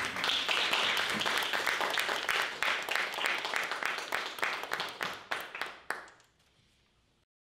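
Audience applauding: many hands clapping at once, thinning out and dying away over about six seconds.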